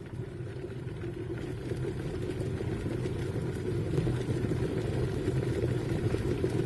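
Kettle heating water toward the boil, steam rising from the spout: a low, noisy rushing that grows steadily louder.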